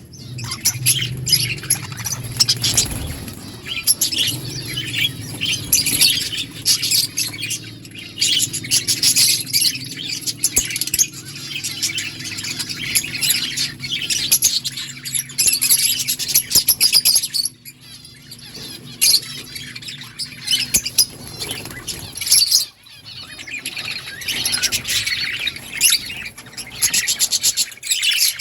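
Budgerigars chirping and chattering in quick, overlapping high chirps, pausing briefly twice in the second half.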